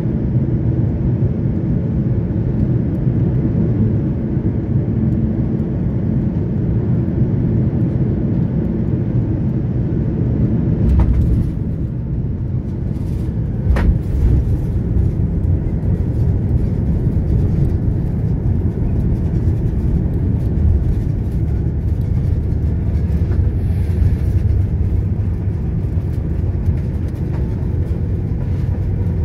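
Airbus A330 cabin noise at the window seat during landing: a steady rumble of engine and airflow noise. A jolt about 11 seconds in and a sharp thump about 14 seconds in mark the touchdown, followed by light rattling through the rollout on the runway.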